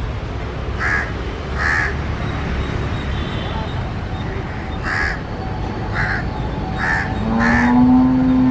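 Crows cawing, about six short caws mostly in pairs, over a steady low rumble. About seven seconds in, a long held low-pitched tone begins and becomes the loudest sound.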